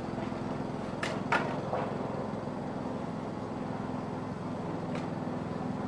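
A steady low machine hum with two light clicks about a second in, as the tape measure and sheet-metal vent are handled.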